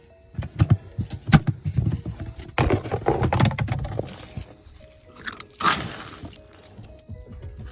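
Dog food being got ready: a run of knocks and clatters, with a longer rustling, pouring stretch about three seconds in and another short burst near the end.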